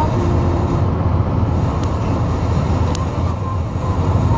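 Steady low road and engine rumble inside a moving car's cabin, with two faint ticks about a second apart near the middle.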